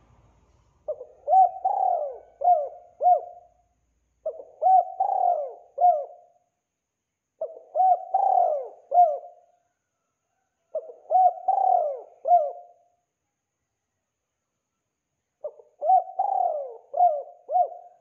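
Spotted dove (tekukur) cooing: five phrases of a few coos each, separated by pauses of about a second, with a longer gap before the last phrase.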